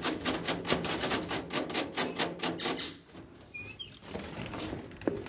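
Rapid, even tapping on a wooden finch nest box, about six taps a second for some three seconds, to drive the bird out of the box. A couple of short, high finch chirps come near the end.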